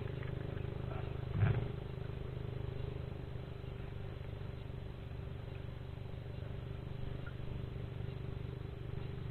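A small engine running steadily, a low even drone with a constant pitch. A brief vocal sound about a second and a half in.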